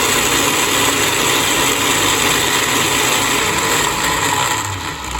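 Electric motor of a Sovio 4-in-1 juicer blender running at full speed with its blender jug fitted: a loud, steady high-speed whirr that winds down near the end as it is switched off.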